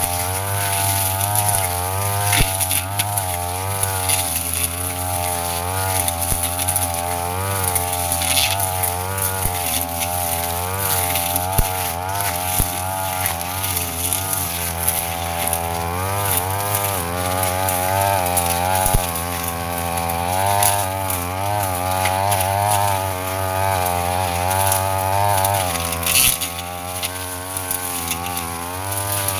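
Brush cutter engine running at high revs while cutting grass, its pitch rising and falling repeatedly as the cutting load changes, then easing off near the end.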